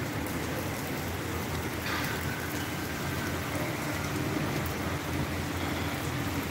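Steady rain falling on wet paving, an even hiss of drops.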